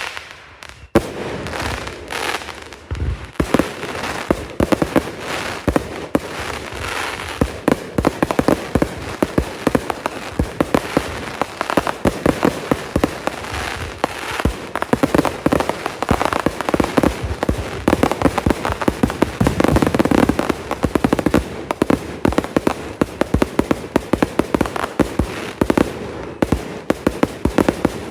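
Consumer fireworks going off in a rapid, continuous barrage: dense bangs and crackling with no pause, after a short gap about a second in.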